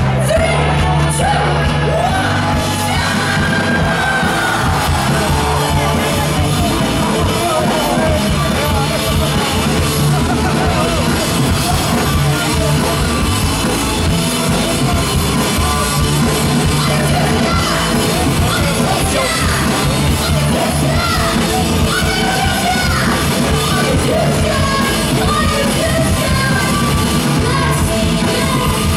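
Live rock band playing loudly: a female lead singer sings and shouts into a microphone over electric guitar and the rest of the band.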